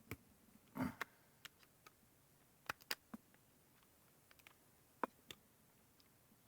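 Sparse, irregular small clicks and ticks of a pocket-knife blade working at a stuck part on an electric razor's chassis, with one short muffled sound about a second in.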